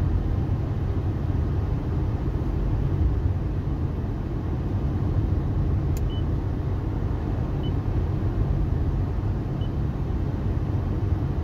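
Car driving at a steady speed, heard from inside the cabin: a continuous low engine and road rumble. A brief click about six seconds in and a few faint, short, high peeps.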